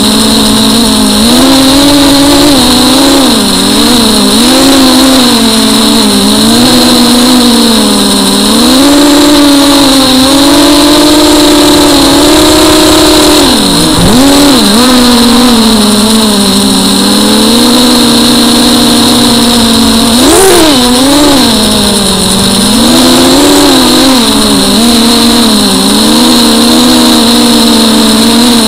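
FPV drone's electric motors and propellers, heard from its onboard camera: a loud whine whose pitch keeps rising and falling with the throttle, dropping sharply about halfway through and surging up about two-thirds of the way in, with a steady high-pitched tone over it.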